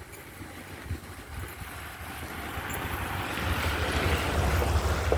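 A car passing on a wet road: a hiss of tyres on water that swells over a few seconds, peaks near the end and begins to fade. Low wind rumble on the microphone underneath.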